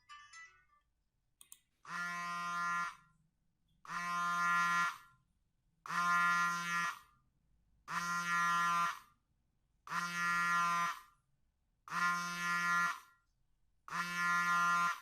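A buzzer-like tone sounding seven times, each about a second long, one every two seconds.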